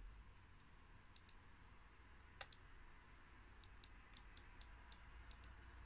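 Faint clicking from a Lenovo IdeaPad 330 laptop being operated: about a dozen light clicks, mostly in quick pairs, coming more often in the second half, with a slightly louder click about two and a half seconds in.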